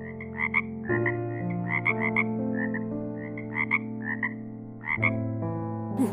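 Frog croaking in short calls, often in pairs, repeated every half second or so over soft sustained background music chords.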